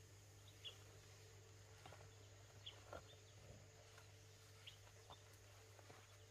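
Near silence: a faint steady low hum, with a few faint short high chirps about every two seconds.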